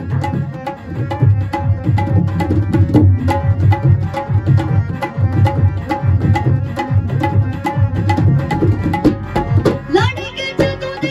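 Instrumental interlude of a Punjabi film-song accompaniment: tabla playing a fast, steady beat under a held melody. A woman's singing voice comes in about ten seconds in.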